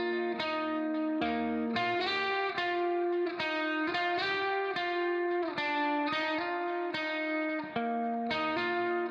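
Background music: a guitar playing a melody of plucked notes, each note struck and ringing out, at a steady moderate tempo.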